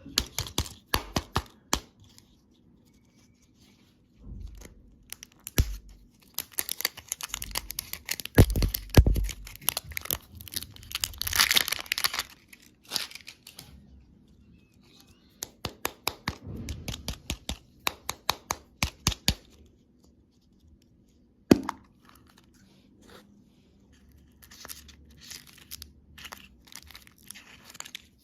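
Candy packaging being torn open and crinkled by hand, in spells of rapid crackling and clicking, with one sharp snap about two-thirds of the way through and softer rustling near the end.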